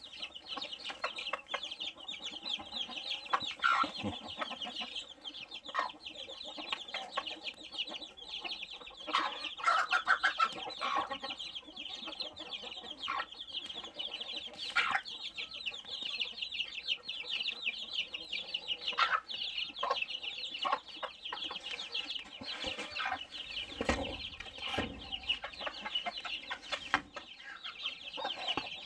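A brood of chicks peeping continuously in a high, busy chorus, with a Cheonggye (Ameraucana-type) mother hen clucking now and then among them.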